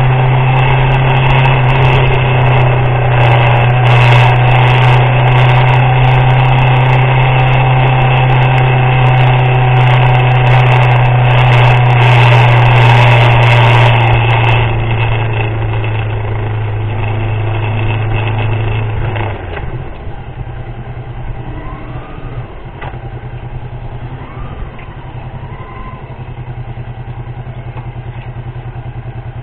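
Motorcycle engine running on the move in the rain, with a loud steady low hum and crackling noise for the first fifteen seconds or so. About nineteen seconds in it gets much quieter, leaving a softer pulsing engine note.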